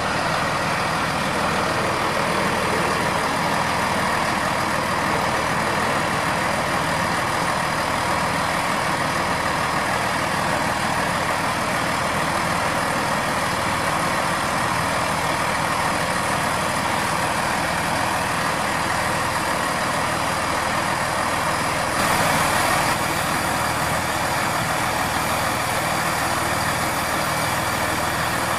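A Chiltern Railways Class 165 diesel multiple unit standing at the platform, its underfloor diesel engines idling steadily, briefly a little louder about three-quarters of the way through.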